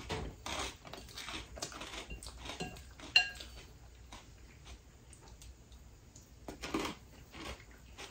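Wooden fork scraping and tapping against a ceramic bowl in scattered short clicks, with one sharper, briefly ringing clink about three seconds in, and quiet chewing between.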